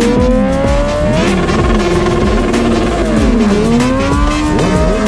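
High-performance engines revving hard, more than one overlapping. The pitch climbs for about a second, holds, drops around three seconds in, then climbs again near the end.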